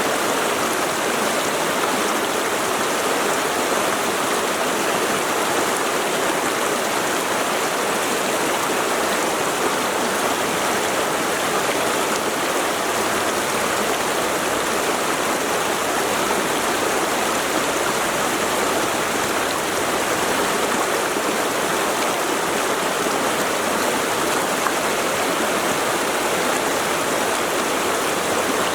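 Mountain stream flowing over rocks: a steady rushing of water.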